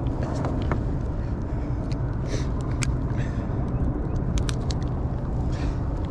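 A steady low motor-like hum over a rumbling background, with scattered faint clicks.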